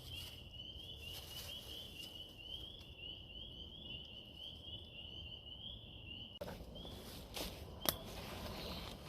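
A high-pitched chirping call repeating about three times a second, which stops about six and a half seconds in. Rustling follows, with one sharp click near the end.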